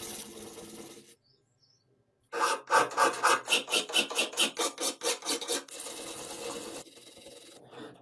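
Hand filing of a machine part: a steady rasp that stops about a second in, then a run of rhythmic back-and-forth strokes, about four a second, then steady rasping again that fades near the end.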